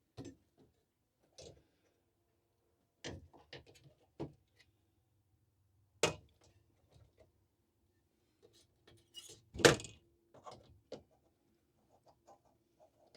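Scattered clicks and knocks of electric stove parts being handled and fitted back together, with two sharper knocks about six and ten seconds in.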